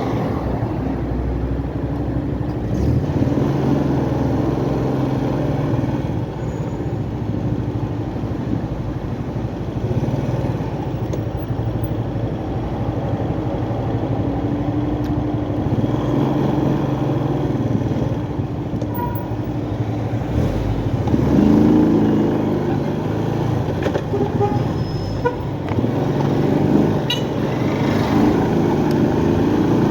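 Motorcycle engine running while riding, its pitch rising and falling several times with throttle and gear changes, over steady road and wind noise.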